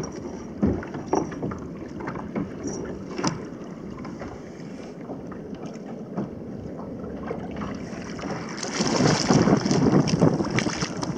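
Scattered knocks and clicks of a fish and gear being handled on a plastic sit-on-top kayak, then wind buffeting the microphone, louder from about eight and a half seconds in.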